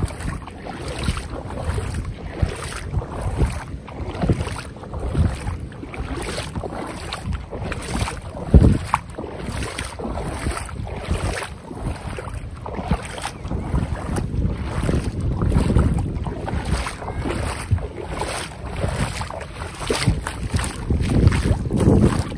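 Seawater sloshing and splashing in a steady rhythm, a little under two strokes a second, as a person wades through deep water, with wind buffeting the microphone. One louder thump about eight seconds in.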